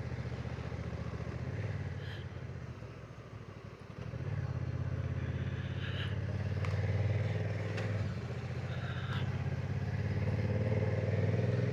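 Motorcycle engine running on the move. It eases off about two seconds in and pulls strongly again at about four seconds.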